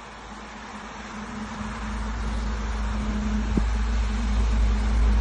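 Low rumbling vehicle noise growing steadily louder, with a faint steady hum and one short click about three and a half seconds in.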